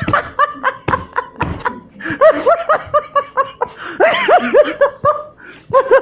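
A man laughing hard in rapid, high-pitched bursts, about four a second, with noisy breaths drawn in between runs.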